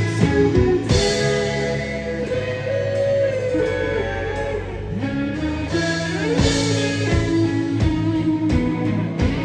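Rock band playing, with an electric guitar lead bending notes upward and sliding between pitches over bass and drums.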